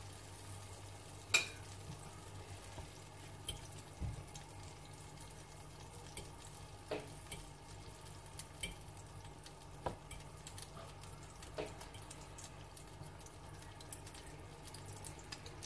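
Egg-soaked bread frying gently in oil in a nonstick pan over a low flame: a faint steady sizzle, broken by a few scattered sharp clicks.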